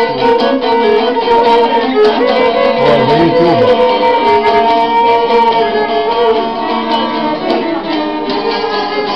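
A violin and a long-necked plucked lute playing a tune together live: the bowed violin holds long melody notes over the quick plucked strokes of the lute.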